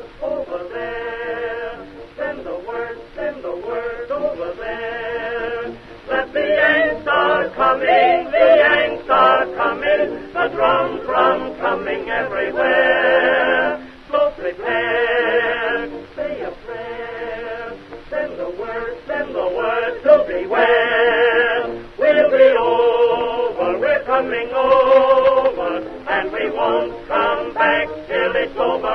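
Music: a song with a singing voice holding wavering, sustained notes.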